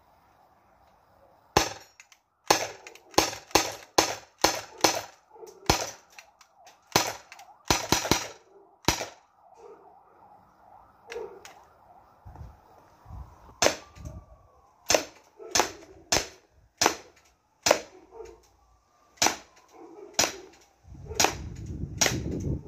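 Umarex Glock 17 gas-blowback CO2 airsoft pistol firing a long string of sharp shots, each with the slide's blowback snap. The shots come fast, two or three a second, for several seconds, then slow to single shots spaced about a second apart. A low rumble runs under the last shots.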